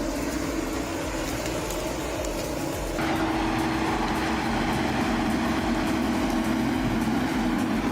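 John Deere 948L-2 skidder's 9.0-litre diesel engine running steadily. About three seconds in the sound jumps louder, with a steady droning tone over the engine noise.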